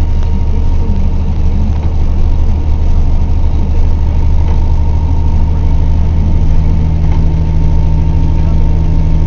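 Truck engine running at a steady pitch, heard from inside the cab while driving, with a constant low drone and a thin steady whine above it.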